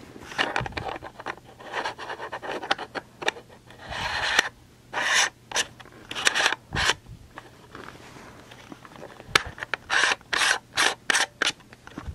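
Fingers handling a clip-on camera lens right against the microphone: rubbing and scraping against the lens and body, with runs of short, sharp scrapes about five seconds in and again near the end as the lens is fitted.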